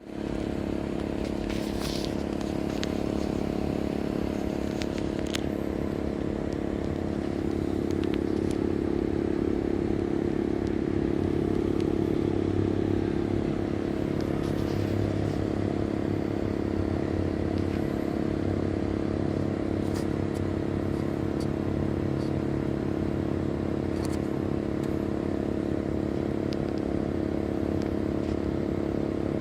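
Compressor of a Sanyo SAE-V28HF heat-pump air conditioner running in heating mode: a steady hum with a few faint ticks, a running noise that the owner finds louder than it should be.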